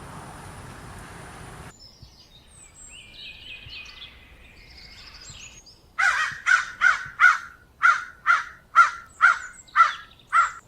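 A steady hiss of outdoor background noise that cuts off suddenly, then faint high bird chirps, then a bird giving about a dozen loud, short calls in quick succession, two to three a second.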